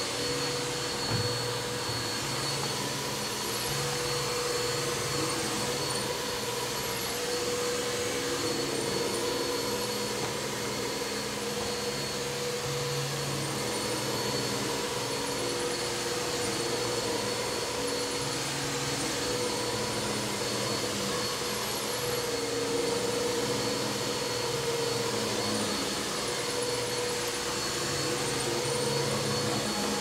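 Upright bagless vacuum cleaner running steadily on carpet: a continuous whooshing roar with a steady whine on top and a low hum that shifts in pitch now and then.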